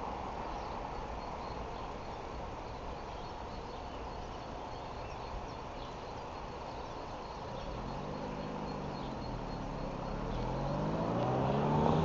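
Steam-hauled train pulling away, a steady rumble of its running as it recedes. From about eight seconds in an engine revs up and down, then rises in pitch and grows louder near the end.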